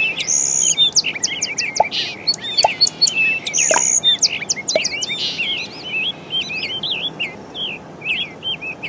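Birds chirping and singing, many quick high chirps overlapping in a busy chorus that thins a little in the second half.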